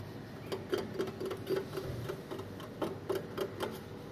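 Irregular light metallic ticking: about a dozen sharp ticks, each with a brief ring, in a quick run from about half a second in, then a second short run about three seconds in.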